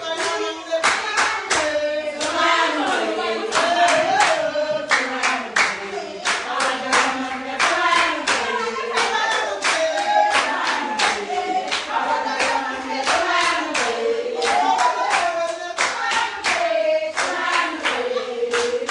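A group of women singing together over steady, rhythmic hand clapping, a celebration song.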